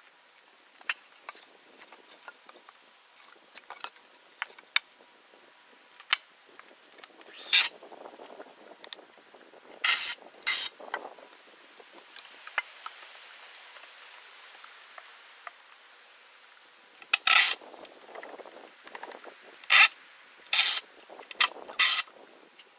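A power drill or driver running screws into wooden framing lumber in about eight short bursts, with small clicks and knocks of handling between them.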